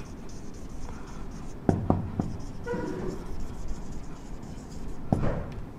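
Marker pen writing on a whiteboard: a run of short scratching strokes with a few sharper taps as words are written out.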